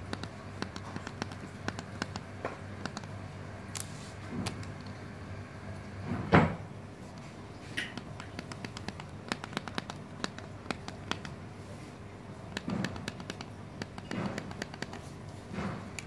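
A run of small irregular clicks from an F24-8D crane radio remote control set being operated, with a louder knock about six seconds in and a few softer knocks near the end.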